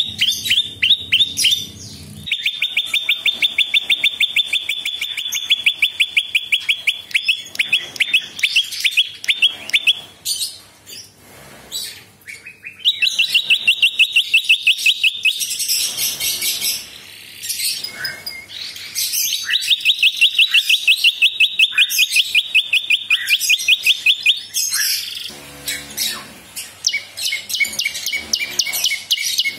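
Caged prenjak singing: long, fast runs of one sharp note repeated many times a second, each run lasting several seconds. Three such runs are separated by shorter, higher chirps.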